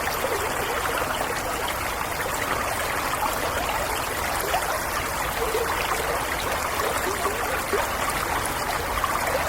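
Stream water flowing and trickling steadily, with small gurgling splashes, over the even rush of a waterfall.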